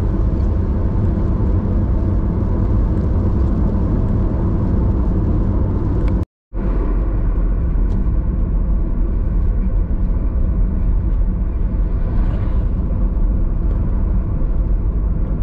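Steady low rumble of road and engine noise heard from inside a moving car, broken by a brief dropout about six seconds in.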